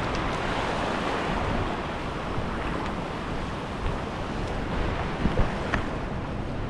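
Wind buffeting the microphone over a steady wash of sea and surf, with a few faint ticks.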